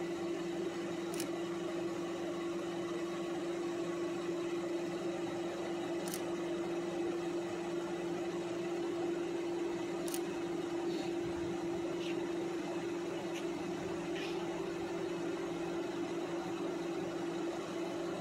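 A steady mechanical hum holds one even pitch throughout, with a few faint ticks scattered through it.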